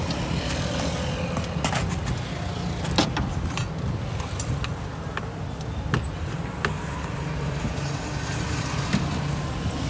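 Steady low rumble of motor traffic, with a handful of sharp clinks and taps from a street noodle stall's metal utensils and trays, the loudest about three seconds in.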